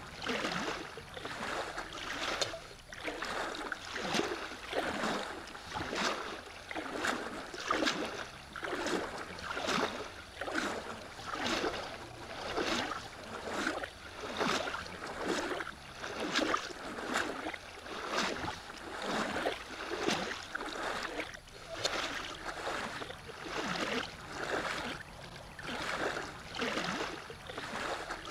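A kayak being paddled: paddle strokes and water swishing along the hull in a steady rhythm, a little more than one stroke a second.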